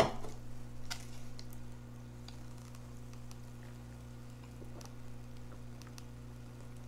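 A sharp knock right at the start, then faint sips and small mouth clicks as soda is drunk straight from a paper plate, over a steady low hum.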